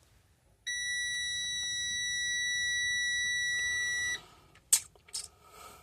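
Freightliner Cascadia dashboard warning buzzer sounding one steady, high-pitched beep for about three and a half seconds, a sign of the truck's fault warnings while it won't start. Two sharp clicks follow near the end.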